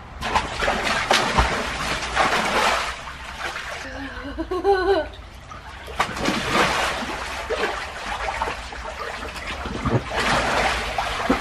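Water splashing and sloshing in an inflatable paddling pool as a child climbs in and swims through it, in uneven surges. A brief voice calls out about halfway through.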